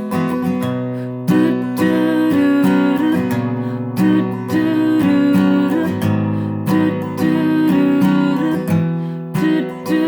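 Acoustic guitar strumming chords in a steady rhythm, an instrumental bar between sung lines of a pop ballad.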